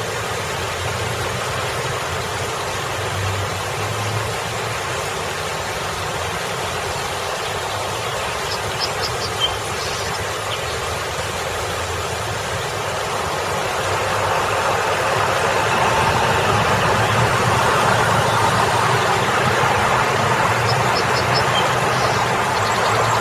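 Steady splashing of a small rock waterfall mixed with the low hum of cars idling and moving in traffic at a busy intersection. The traffic noise grows louder a little over halfway through.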